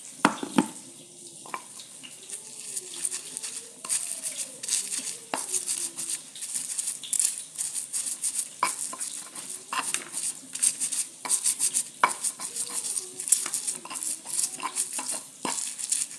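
Pestle crushing and grinding tomatoes, chilies and shallots in a mortar for sambal: a fast, uneven run of knocks and scrapes.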